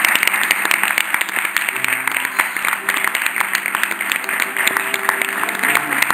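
Audience applauding with dense, steady clapping, over soft background music.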